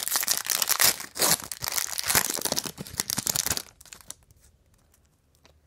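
A trading-card pack wrapper torn open and crinkled by hand: a dense run of crackling and tearing that stops about four seconds in, leaving only a few faint clicks.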